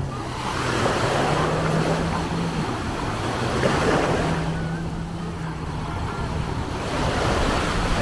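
Small waves breaking and washing up the sand, the surf swelling and easing every few seconds. A steady low motor hum runs underneath.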